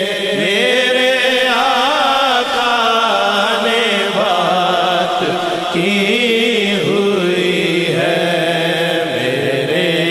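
Naat singing: a voice sings a wavering, ornamented melodic line over a steady held drone.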